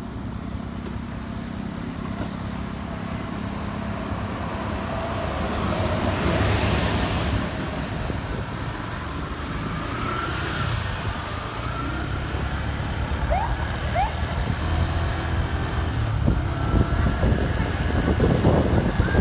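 Street traffic: engines running and vehicles passing, the rumble growing louder toward the end. Two short rising chirps come about two-thirds of the way through.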